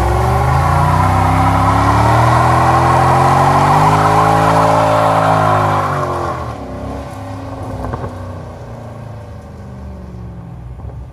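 Mercedes CL63 AMG's V8, its exhaust resonator deleted, held at high revs while the rear tyres spin in a burnout. The engine note climbs slowly, then falls away about five to six seconds in. After that the engine sound is fainter as the car pulls off.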